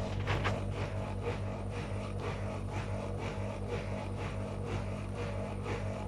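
Whirlpool FL 5065 front-loading washing machine turning its drum slowly before the spin: a steady motor hum, with the wet laundry tumbling and swishing about twice a second.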